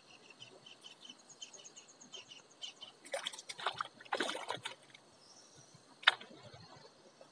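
Faint high chirping repeats several times a second. About three seconds in comes a second and a half of water splashing and handling noise, and about six seconds in a single sharp knock.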